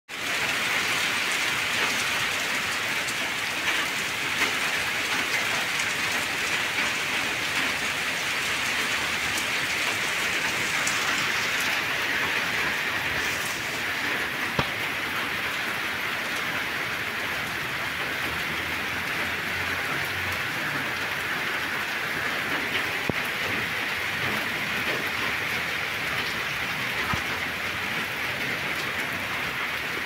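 Steady rain falling: a continuous even hiss with occasional sharper ticks of single drops.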